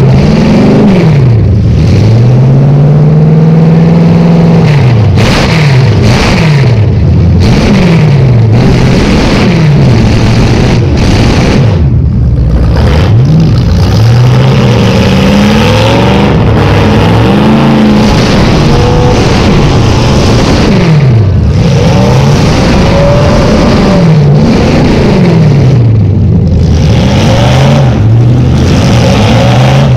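Chevrolet Caprice demolition derby car's V8, with open header pipes through the hood, revving up and down over and over. It is very loud at the roof microphone.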